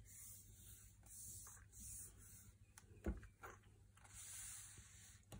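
Faint rustle of hands rubbing and pressing a glued paper layer flat onto card stock, with one soft knock about three seconds in.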